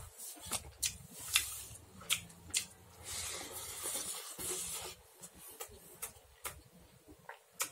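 Close-up eating sounds from a man eating rice and chicken with his hand: wet mouth clicks and lip smacks while chewing, with fingers working the food on the plate. A denser rustling stretch comes about three seconds in.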